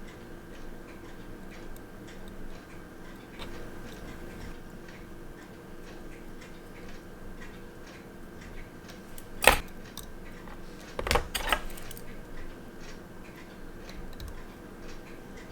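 Small metal watchmaker's tools clicking against a watch movement: one sharp click about nine seconds in and a short flurry of clicks a second and a half later. Faint steady ticking and a low equipment hum run underneath.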